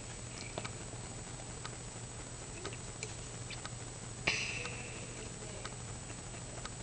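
Quiet room with a steady low hum and faint, irregular clicks. About four seconds in there is a single sharp click followed by a brief hiss that fades.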